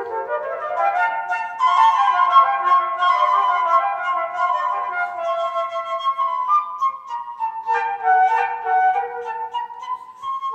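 Flute duet: two flutes, one a silver transverse concert flute, playing a melody together in quick-changing notes.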